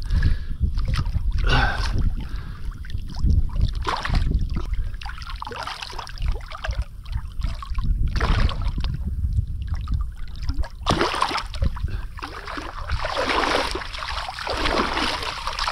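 Water splashing and sloshing beside a kayak as a large black drum is lowered back into the water and released, over a low rumble on the microphone. The splashing is irregular and grows heavier in the last few seconds.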